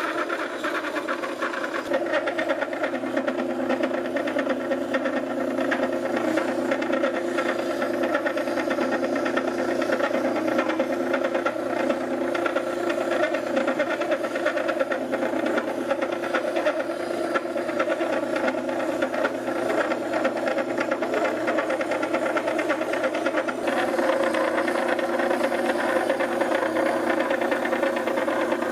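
Wet wheel whetstone grinder running with a steady hum, and a planer knife being ground against the wet stone with a continuous scraping rasp.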